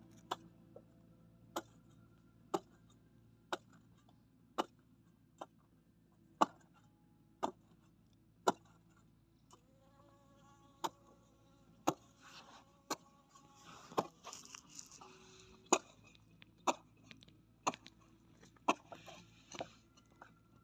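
Faint, sharp clicks at about one a second over a low hum. From about ten seconds in, a cluster of high, wavering tones joins them.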